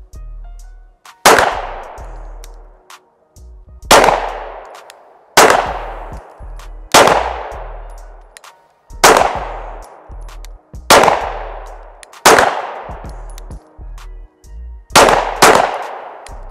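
Two handguns firing slow, deliberate single shots, about nine in all, spaced one to three seconds apart, with the last two close together near the end; each crack rings out briefly. This is a timed five-shot slow-fire string for each shooter.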